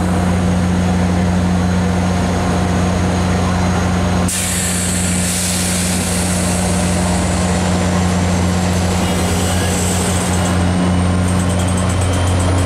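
Diesel-electric passenger locomotive (an F40PH-3C) running steadily with a low, even hum. About four seconds in, compressed air starts hissing out loudly, a train air release that lasts about six seconds before dying away.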